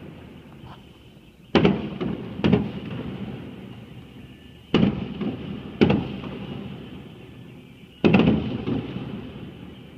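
Aerial fireworks bursting: five sharp bangs at uneven intervals, each trailing off in a long echoing rumble.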